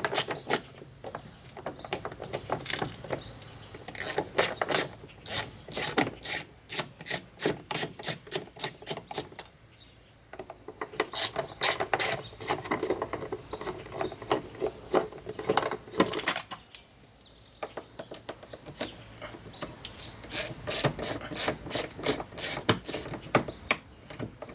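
Hand ratchet with a T27 Torx bit clicking in quick, even strokes as a door-panel screw is backed out. It runs in three spells with short pauses between them.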